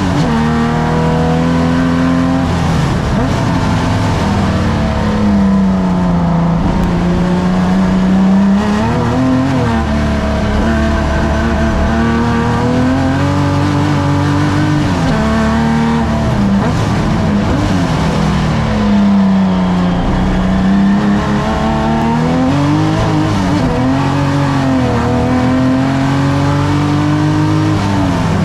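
Engine of a pre-1965 saloon race car at racing speed, heard on board. The engine note climbs and falls repeatedly, with several sharp drops and long rises, as the car accelerates and slows through the corners.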